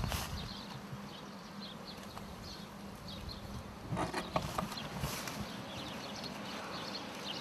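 Faint outdoor ambience of scattered short, high chirps, with a few light knocks and clicks about four seconds in.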